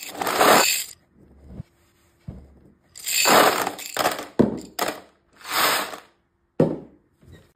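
Small plastic cube beads clattering and rattling against a hard plastic tray, in about five separate bursts each under a second long, with near quiet between them.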